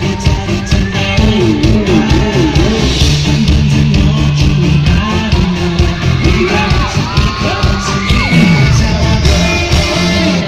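Loud live band music with a singer, amplified in a large hall, with fans yelling and whooping over it.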